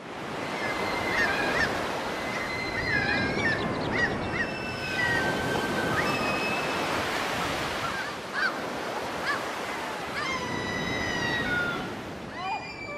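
Steady rushing outdoor noise with many birds calling over it: short whistled chirps and gliding notes, several overlapping, thickest about a third of the way in and again near the end.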